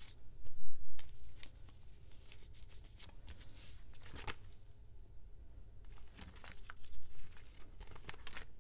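Plastic photocard sleeves and binder pages crinkling and rustling as cards are handled, in short crackles, the loudest just under a second in and a few more later.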